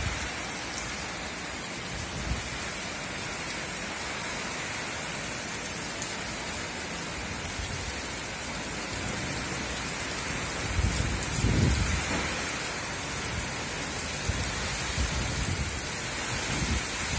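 Heavy cyclone rain pouring down in a steady hiss. A low rumble swells about two-thirds of the way through, with smaller low surges near the end.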